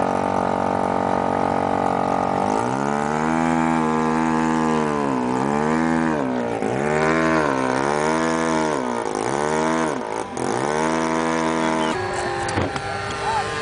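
A radio-controlled model airplane's small piston engine running at a steady high speed, then revved up and down over and over, its pitch dipping and rising about once a second and a half. The engine sound cuts off abruptly near the end.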